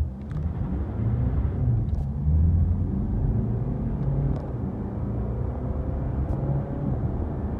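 Mercedes-Benz C220d's 2.0-litre four-cylinder diesel, heard inside the cabin, pulling hard from a standstill under full-throttle acceleration. It swells about a second in and rises in pitch, dipping briefly a little after four seconds as the automatic gearbox shifts up.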